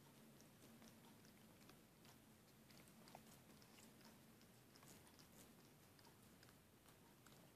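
Near silence, with very faint, irregular wet clicks of a cat licking and mouthing a hard lollipop.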